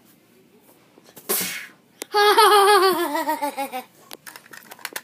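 A short breathy burst, then a child's high voice laughing in a quick, wobbling run that falls in pitch for nearly two seconds. Faint clicks from handling follow.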